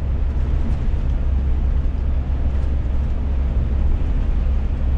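Steady low drone inside the cab of a Scania S500 truck cruising at highway speed: engine and road noise.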